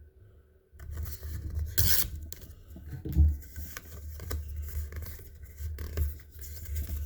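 Foil wrapper of a Pokémon card booster pack crinkling and tearing as it is opened, with card and wrapper handling rustling close to the microphone. The sound starts after a brief silence, with a sharper rip about two seconds in and a dull thump about three seconds in.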